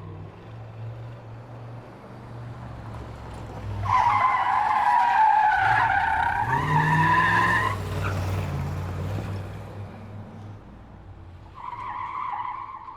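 Car tyres screeching over a car's low engine rumble: one long screech from about four seconds in until nearly eight, sagging a little in pitch, and a shorter one near the end.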